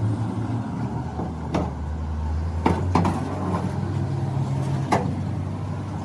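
A vehicle engine idling steadily, with a few sharp knocks and clanks of heavy steel truck axle parts being handled and set down.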